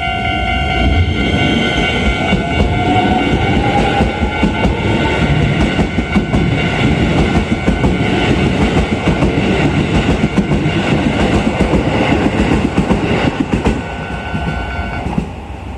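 Keisei 3050-type electric train pulling away from the station, with a rising whine as it accelerates over the loud rumble and clatter of its wheels on the rails. A level-crossing warning bell rings steadily alongside. The train noise eases off near the end.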